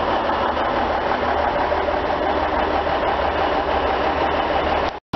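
Class 153 and Class 150 diesel railcars idling at the platform: a steady low engine hum with an even noisy hiss over it.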